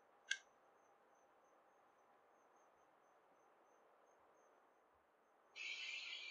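Near silence with a faint, high insect chirp repeating about three times a second. A single sharp click comes just after the start, and a louder hiss starts suddenly near the end.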